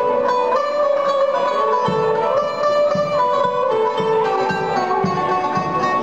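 Turkish traditional ensemble of violin and plucked strings playing a flowing melody in unison, with low drum beats entering about two seconds in at roughly two a second.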